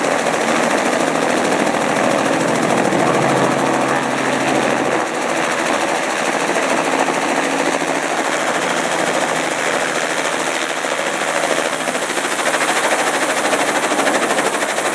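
Helicopter running close by: its rotor beats in a rapid steady chop over the engine's whine.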